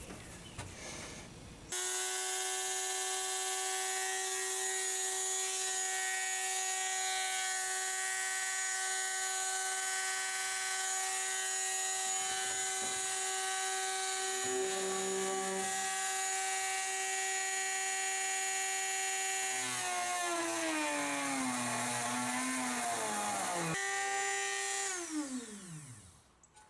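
Dremel rotary tool cutting into a plastic boat console, running as a steady high whine. After several seconds the pitch drops and wavers, then comes back up. Near the end it winds down to a stop.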